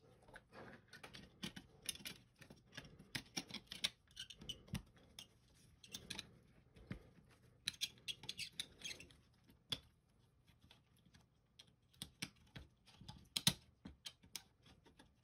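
Small plastic clicks, taps and scratchy rustles as the parts of a Microsoft IntelliMouse Optical are handled and fitted back together: the circuit board and cable go into the red plastic shell. A sharper click comes near the end.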